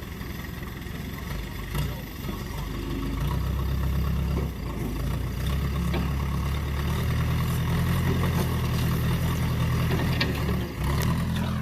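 Heavy-equipment engine running under load. It works harder about three seconds in and again around five and a half seconds, with a brief dip near the end.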